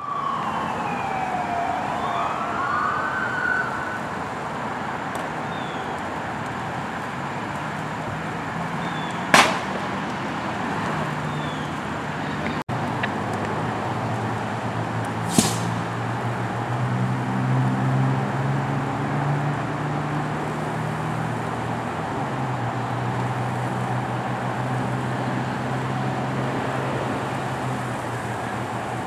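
A siren wails briefly at the start, then a burning car gives off a steady rushing noise, broken by two sharp loud bangs about nine and fifteen seconds in as parts of the fully involved car explode. A low engine hum comes in about halfway.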